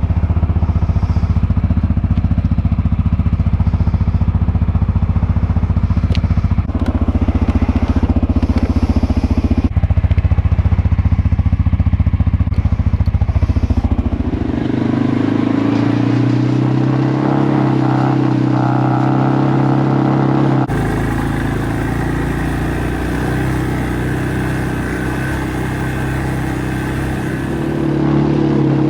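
ATV engine running under load while dragging a heavy tree trunk through wet snow to plow a driveway. The engine note shifts several times, and about halfway in it settles into a different, steadier pitch.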